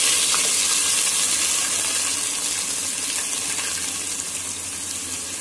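Chopped onions sizzling loudly in hot mustard oil, a dense frying hiss that slowly eases off.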